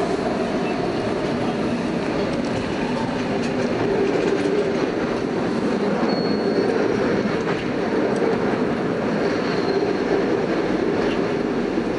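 Inside a moving SEPTA M-4 Market-Frankford Line rapid-transit car: steady wheel-on-rail running noise with a constant hum from the car, with a brief faint high whine about six seconds in.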